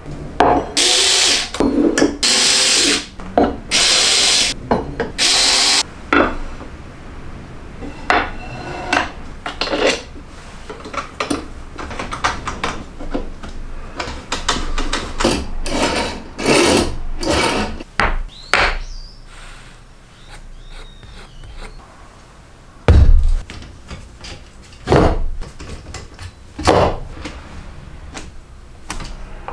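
A power tool runs in four short bursts of about a second each. Then come scattered knocks and clatter of steel brackets and parts being handled and fitted on a wooden jig, with a heavy thump about 23 seconds in.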